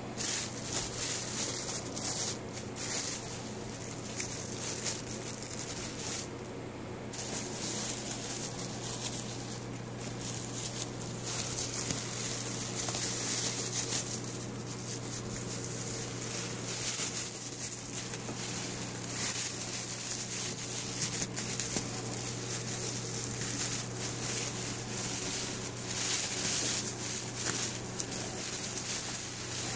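Thin plastic shopping bags rustling and crinkling as they are handled, with irregular crackles, over a steady low hum.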